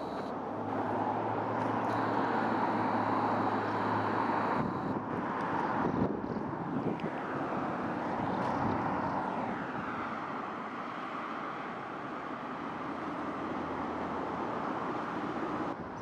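Steady engine noise from passing traffic, loudest over the first six seconds, with a sharp knock about six seconds in.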